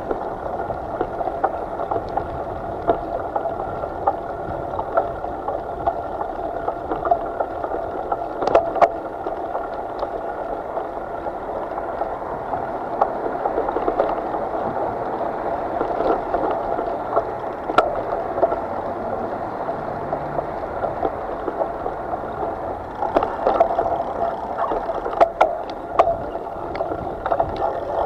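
Steady rushing and gurgling of water around a small boat, with occasional short sharp clicks.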